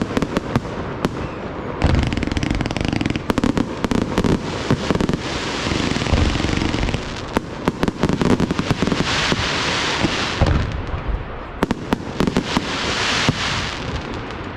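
Fireworks display: many sharp bangs in quick succession, with stretches of dense crackling in between.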